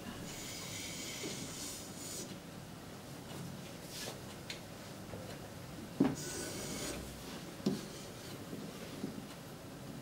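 Chalk held in a large blackboard compass scraping across a chalkboard as circle arcs are drawn, in two strokes, one at the start and one about six seconds in. A few sharp knocks come as the compass is set against the board.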